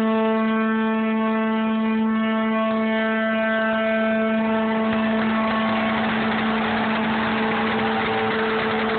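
Ship's horn of the Arleigh Burke-class destroyer USS Michael Murphy sounding one long, steady blast. Crowd applause and cheering rise underneath from about halfway through.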